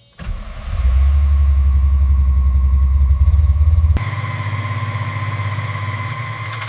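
1974 Dodge Monaco's 440 V8 starting up and running loudly with a deep, steady low note. About four seconds in the sound drops abruptly to a quieter, thinner running sound.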